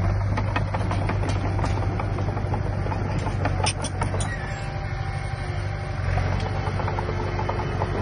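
Diesel engine of heavy earthmoving machinery running steadily, with frequent sharp clicks and clanks over it, a cluster of louder ones about four seconds in.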